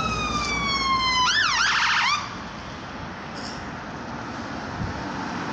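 Ambulance siren on a slow falling wail, switching about a second in to a rapid yelp, then cutting off suddenly about two seconds in. Steady traffic noise follows.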